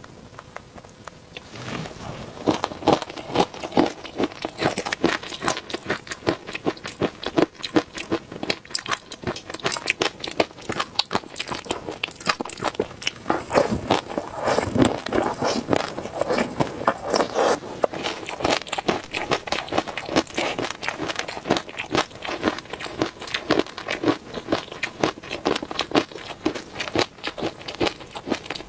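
Close-miked eating sounds of someone eating peanut sauce: a dense, irregular stream of chewing, mouth clicks and crackles, starting about a second and a half in.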